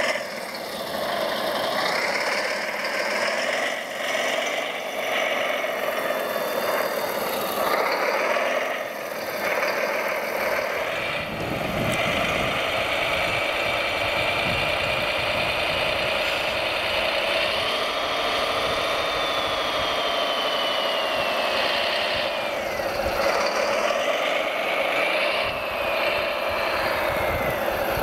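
Radio-controlled model construction machines running, with an engine-like drone and rattle and motor whines that rise and fall in pitch as they drive and work.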